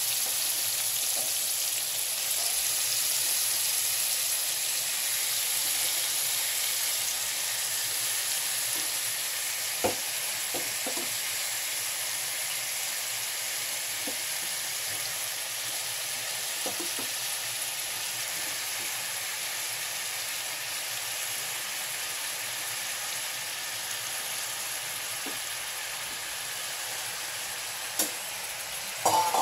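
Raw peeled shrimp sizzling in hot oil, just added to the pan: a steady hiss that slowly eases. There are a few sharp clicks of a metal spatula against the pan, a cluster about ten seconds in and more near the end.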